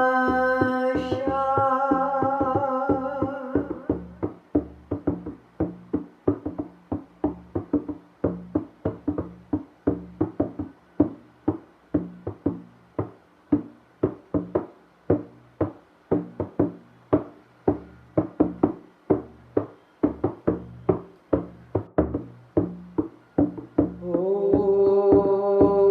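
A voice holds a long chanted tone, then a hand drum takes over with a steady beat of about two strokes a second, a trance rhythm. Near the end, a long sung tone returns over the drum.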